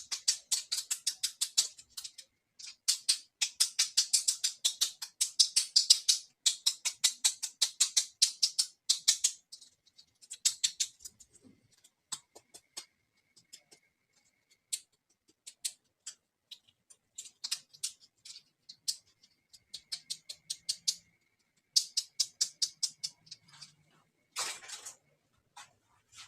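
Small dollhouse toy pieces and their packaging being handled: rapid light clicks and scratches, many a second, in bursts with short pauses, and a brief crinkle near the end.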